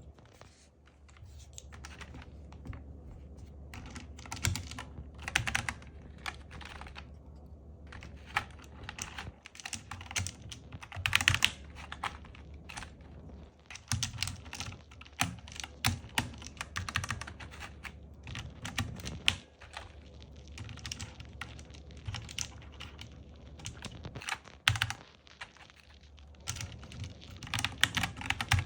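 Typing on a Zifriend KA646 mechanical keyboard: irregular runs of quick key taps broken by short pauses.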